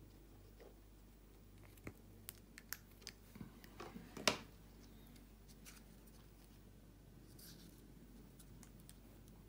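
A handful of faint clicks and taps of hands handling small parts and heat shrink tubing on a cutting mat, bunched between about two and four and a half seconds in, the loudest near the end of that run; the rest is a faint steady hum.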